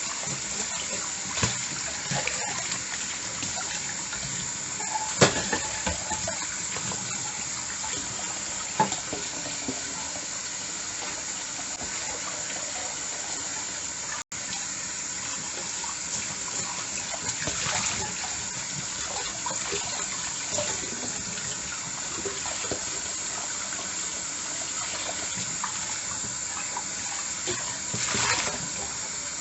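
Tap water running steadily into a sink while dishes are washed, with a few sharp clinks of dishes knocking together, the loudest about five seconds in.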